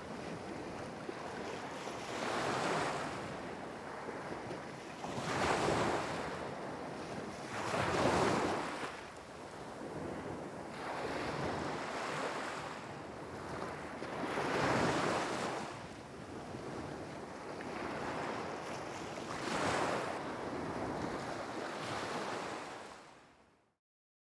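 Ocean surf washing ashore, swelling and falling back in waves every few seconds, then fading out near the end.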